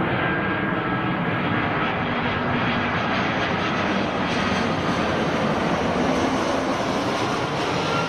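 Airbus A320 airliner on landing approach with gear down, passing low overhead: a loud, steady rush of jet engine noise with a faint whine that drops slightly in pitch as it goes by.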